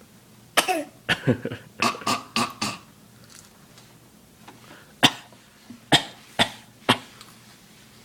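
A run of short, deliberate coughs: a quick cluster of about six in the first three seconds, then four sharp single coughs about half a second to a second apart starting about five seconds in. These are a toddler's play coughs, copying the coughs of the family around him.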